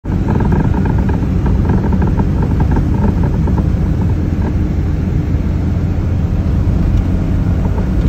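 Geo Metro driving over a bumpy road: steady road and engine rumble in the cabin, with a run of light knocks and rattles from the front suspension in the first half. It is the clunk that comes only over small bumps, not when turning, which the driver suspects is a worn bushing.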